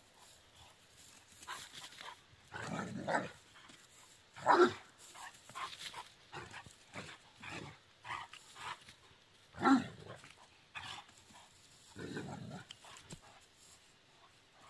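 Great Dane barking in short bursts while play-fighting with a pygmy billy goat. The loudest barks come about four and a half and nine and a half seconds in, with rougher, longer sounds near the start and near the end, and small scuffling knocks between them.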